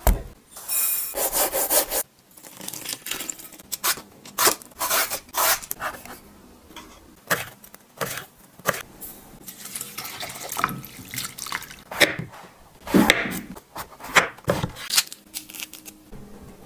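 Pomelo being prepared by hand: a knife slicing rolled pomelo peel into thin strips on a wooden cutting board, rind rubbing and tearing, and the pink flesh pulled away from its white pith. It comes as a run of short, crisp strokes and rustles with brief pauses between them.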